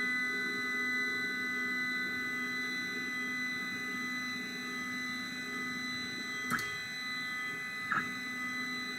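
Undamped NEMA 17 Z-axis stepper motor of a Wanhao Duplicator 6 3D printer driving the build plate up: a steady buzz made of several fixed high tones, the usual stepper motor sound. Two faint clicks about six and a half and eight seconds in.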